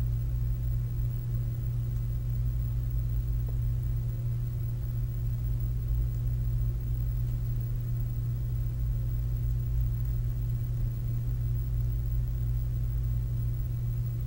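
A steady low electrical hum with no other sound, even throughout.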